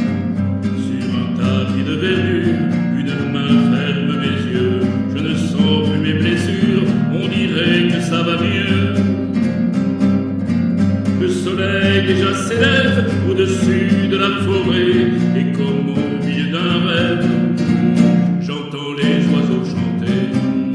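Acoustic guitar music, played steadily, with a higher melody line weaving over it and no sung words.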